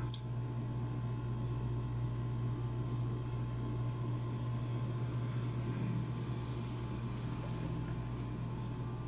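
A steady low mechanical hum runs throughout, with a few faint clicks and crackles of a balut's eggshell being peeled by hand.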